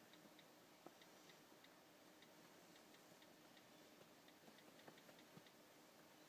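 Near silence: room tone with faint, irregularly spaced light ticks, a few each second.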